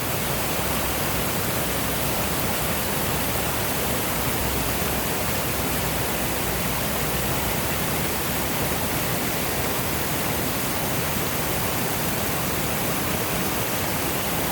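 Waterfall pouring, a steady rush of falling water.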